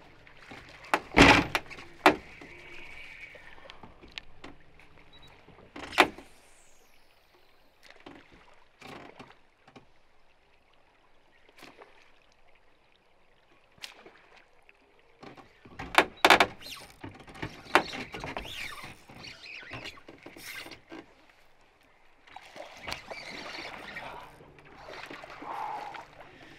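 Topwater popping lure jerked across a river's surface: scattered sharp splashes, one or two at a time, with a quick cluster of them past the middle and a stretch of rustling water near the end.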